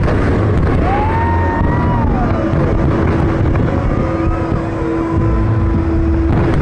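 Large fireworks display going off continuously, its overlapping booms merging into a dense low rumble. A whistling tone rises and falls about a second in, and a steady low tone sounds through the second half.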